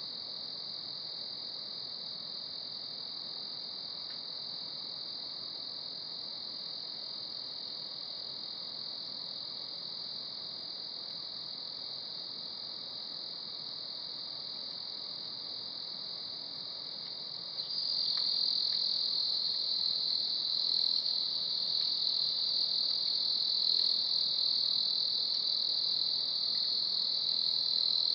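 A steady, high-pitched chorus of crickets and other night insects, which suddenly grows louder about two-thirds of the way through.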